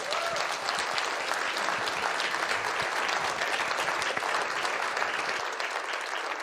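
Audience applauding: a steady clatter of many hands clapping, easing a little near the end.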